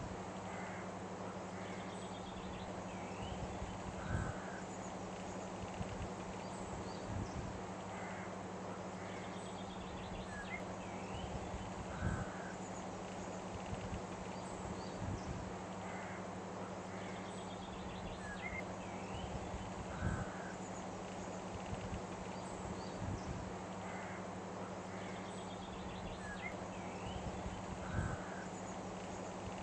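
Looped outdoor ambience: short bird calls over a steady hiss and low hum, with a louder call and knock coming back about every eight seconds as the same pattern repeats.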